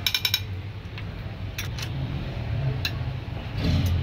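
Hand tools clicking and clinking on a Suzuki Vitara G16A engine with its cylinder head open while it is turned by hand with a long bar. There is a quick run of clicks at the start and a few single metal clicks later, over a steady low hum.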